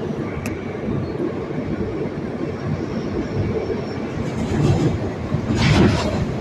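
Train running on the rails: a steady low rumble, with a sharp click about half a second in and a louder clatter near the end.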